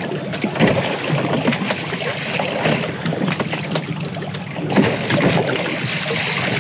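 Lake water lapping and splashing irregularly against the hull of a drifting boat, over a steady low hum.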